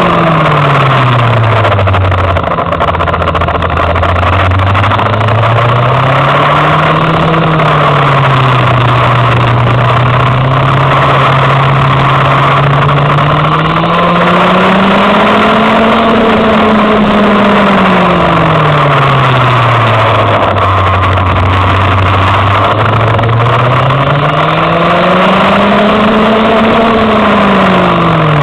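Go-kart engine heard from on board, its pitch climbing as it accelerates out of corners and dropping as it comes off the throttle into the next, over and over through the lap.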